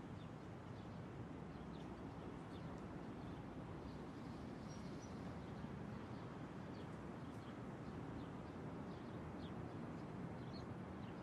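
Faint steady outdoor background noise, a low hum and hiss, with scattered faint high chirps.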